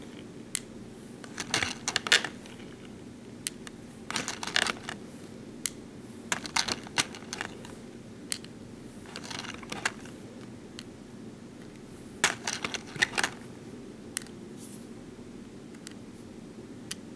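BeadOs beads clicking and tapping against a plastic layout board and sorting tray as they are picked up and set in place one by one. The clicks come in short clusters every few seconds.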